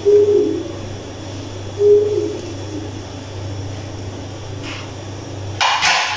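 Steady low hum, with two short low tones in the first two seconds and a brief rustling noise near the end.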